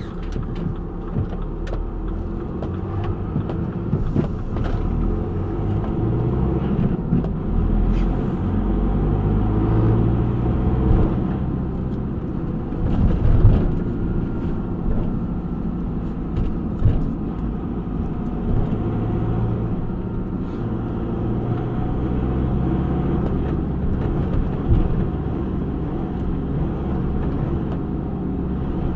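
Delivery van's engine and road noise heard from inside the cab while driving, a steady low rumble that rises and falls slightly with speed, with a few brief knocks.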